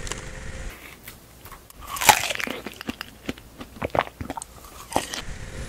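A person biting into and chewing fresh strawberries: a string of short bites and chews, the loudest bite about two seconds in.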